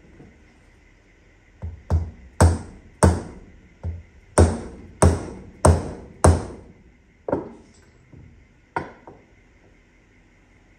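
Soft-faced mallet striking a steel gear set about a dozen times, drifting a freshly fitted tapered roller bearing down until it seats against its circlip. The blows come about two a second for several seconds, each with a short metallic ring, then three more spaced out near the end.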